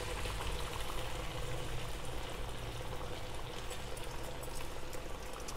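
A vada of urad-dal and wheat-flour dough deep-frying in hot oil in a kadhai: a steady sizzle with fine crackling.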